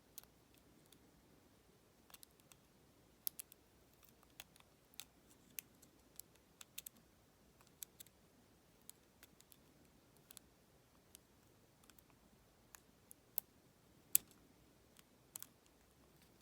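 Lock pick working the pin stack of a Federal PL90PE lockout padlock: faint, irregular small clicks and taps, one or two a second, a few sharper ones near the end.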